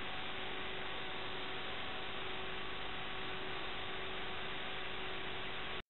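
Steady electronic hiss with a faint hum running through it, cutting off suddenly near the end.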